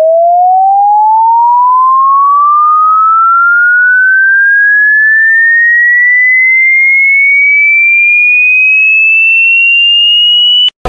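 A single pure electronic tone, a sine-wave sweep, gliding steadily upward from low to high pitch, climbing quickly at first and then more slowly. It cuts off suddenly near the end.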